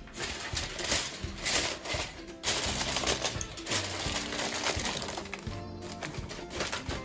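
Aluminium foil crinkling and crackling as hands press and crimp it tight over a roasting pan, with background music playing.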